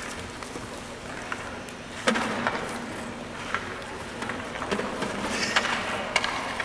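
Ice hockey practice: skate blades scraping the ice, with sharp cracks of pucks hit by sticks or striking the boards, the loudest about two seconds in, over a low steady hum.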